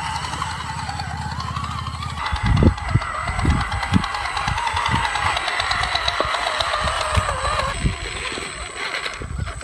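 Electric motor and gearbox of an RC scale rock crawler whining, its pitch wavering with the throttle. From about two seconds in, a higher, steadier whine runs with irregular low knocks about every half second.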